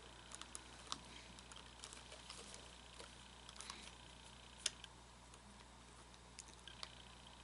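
Faint, scattered small clicks and taps of plastic parts being handled while an animatronic figure's hip gear mechanism is reassembled, with one sharper click about halfway through.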